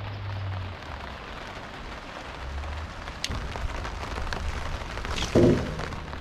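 Rain falling steadily, an even hiss of many small drop ticks, with a sharp click about three seconds in and a louder thump near the end.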